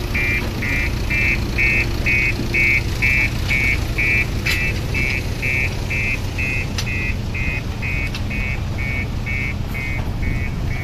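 An electronic beeper sounding short, even, high beeps about twice a second, over a steady low rumble of running machinery.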